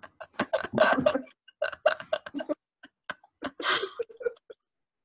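Two women laughing in short, broken bursts.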